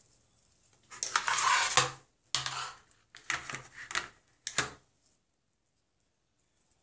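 Clattering and knocking of hard objects being handled, in about four short bursts, the first and longest the loudest.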